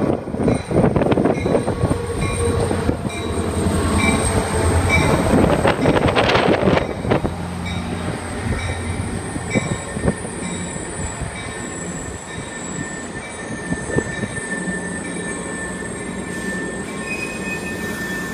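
Caltrain diesel locomotive and bilevel gallery coaches passing close below, the wheels rumbling over the rails with a thin, high wheel squeal. Loudest for the first seven seconds as the locomotive goes by, then a steadier rumble as the coaches roll past.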